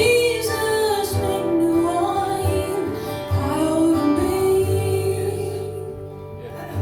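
Live worship music: a woman singing a slow, drawn-out melody over acoustic guitar. Her voice fades out about four seconds in, leaving the guitar.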